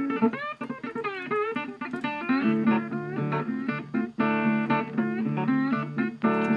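Background guitar music: plucked and bent guitar notes over a bass line that comes in about two and a half seconds in.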